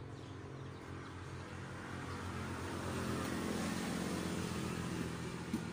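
A motor vehicle's engine going past, growing louder to its peak a little past the middle and then fading.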